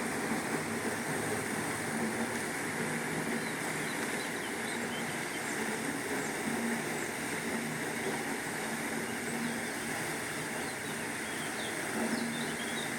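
A steady rushing noise, with faint bird chirps scattered through the second half.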